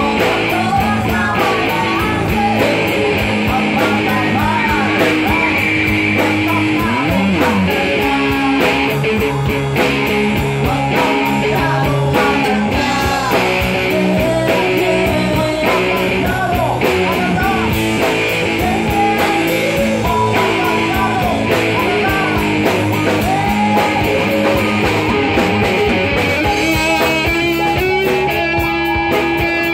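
A live rock band playing a song: electric guitars and bass through small amplifiers over a drum kit, with a singer's voice carrying the melody.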